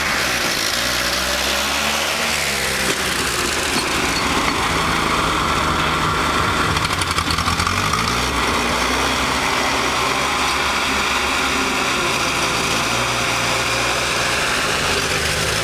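Massey Ferguson 35 tractor engine running hard and revving during wheelies. Its pitch falls in the first few seconds and rises again around the middle, over a steady engine drone.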